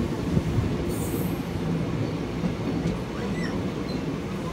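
Train running on track, heard from on board: a steady rumble of wheels on rails, with a brief high wheel squeal about a second in.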